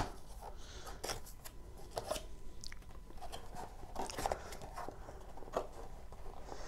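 Scattered light rustles, crinkles and taps of packaging being handled: a cardboard kit box and the small plastic-bagged items inside it being reached for and shifted.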